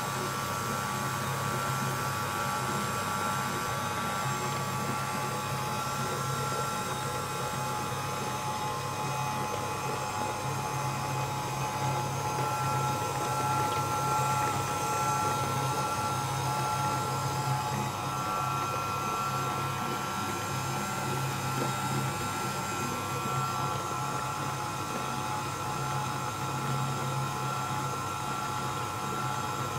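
KitchenAid Artisan 5KSM175 stand mixer running steadily, its motor giving a constant hum with a high whine, as the flat beater turns through thick carrot cake batter in the steel bowl.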